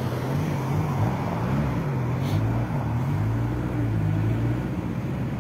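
Steady road and engine noise from inside a moving car, with a low hum that wavers slightly in pitch.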